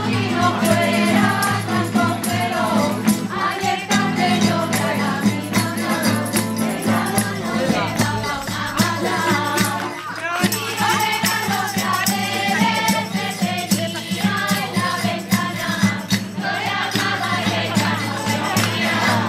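A group of voices singing a Spanish folk song together, accompanied by strummed acoustic guitars and hand percussion keeping a steady beat, with a brief lull about halfway through.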